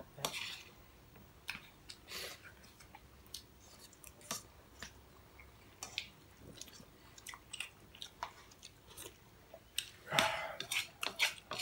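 People eating with spoons and forks from ceramic bowls: chewing, with scattered sharp clinks and scrapes of cutlery on the bowls and a busier clatter about ten seconds in.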